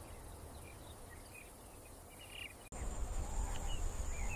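Savanna nature ambience: faint scattered chirps at first. After an abrupt change about two-thirds of the way through, a steady high insect drone, like crickets, sits over a low rumble.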